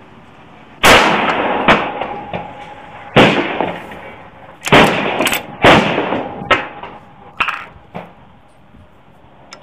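A run of rifle shots at a shooting range, about eight sharp reports with echoing tails. The loudest come about one, three, four and a half and five and a half seconds in, with fainter ones between and after. They come faster than one shooter can work a bolt-action, so neighbouring shooters are firing too.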